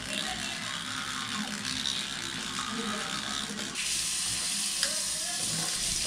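Teeth being brushed with a toothbrush, a scratchy scrubbing, then about four seconds in a bathroom tap is turned on and water runs steadily into the sink as the brush is rinsed.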